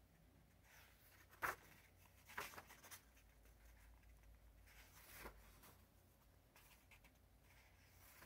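Sketchbook pages turned by hand, quiet overall: a sharp tap about a second and a half in, then short paper rustles and flicks around two to three seconds, again near five seconds and faintly near the end.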